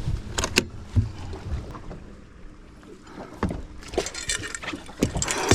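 Scattered knocks and short splashy water noises aboard a bass fishing boat.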